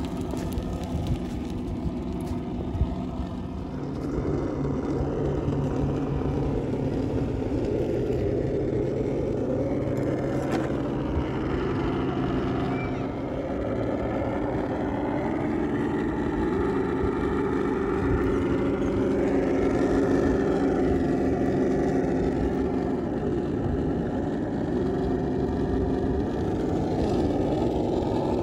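Traxxas TRX-6 6x6 RC crawler's onboard sound system playing a simulated engine, its pitch rising and falling with the throttle as the truck crawls over rocks.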